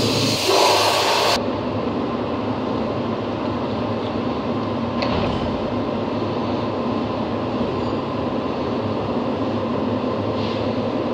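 Paint spray gun hissing with compressed air, cutting off about a second and a half in. A steady machine drone runs on underneath, with a few faint clicks.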